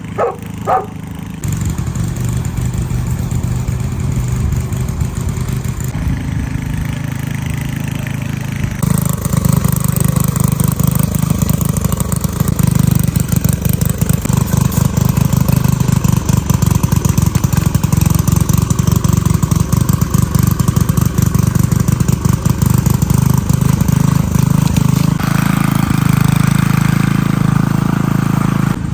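Small petrol engine of a garden tiller running steadily, with load changes as it works the soil. It gets louder about nine seconds in and changes again near the end.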